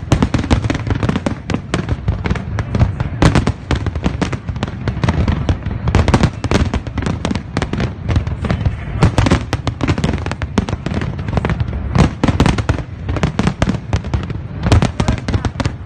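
Aerial fireworks display: shells bursting one after another in a dense, unbroken barrage of overlapping bangs.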